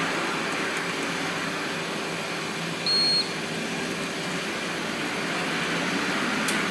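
Steady rushing air noise from workbench equipment, with one short high electronic beep about three seconds in.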